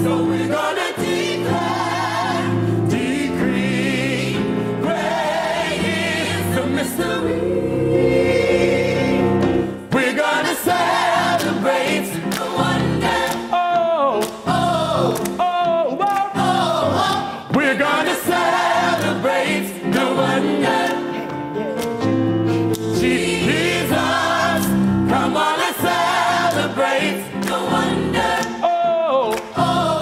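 Gospel choir singing, full and continuous.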